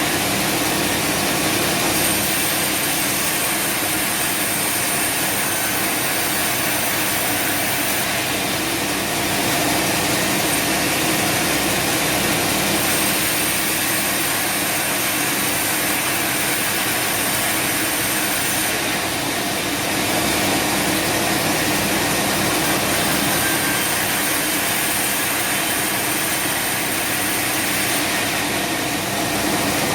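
Sawmill machinery running steadily with a constant mechanical hum and hiss, no single blows or changes.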